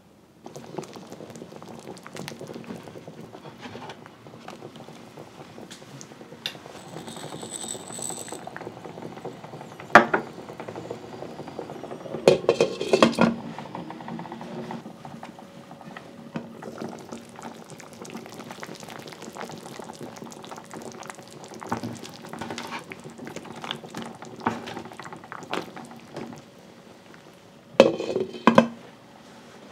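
A pot of pot-au-feu broth with vegetables bubbling on the stove. A few sharp clinks and clatters of the glass lid and metal pot stand out, one about ten seconds in, a cluster around twelve to thirteen seconds, and two near the end.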